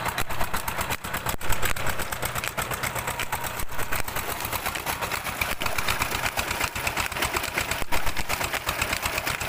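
Petter diesel engine running steadily at working speed with a rapid, even exhaust beat, driving a tube-well water pump by a flat belt.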